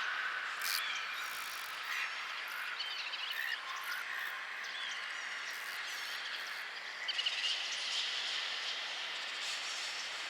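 Forest ambience: a steady chorus of calling animals, with many short bird chirps and whistles scattered through it. The chorus grows a little louder about seven seconds in.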